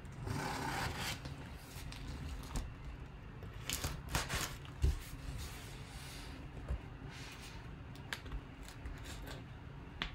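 Hands working at a taped-up corrugated box: scraping and rubbing against the box, a few sharp tearing strokes about four seconds in, a thump about five seconds in, and scattered clicks.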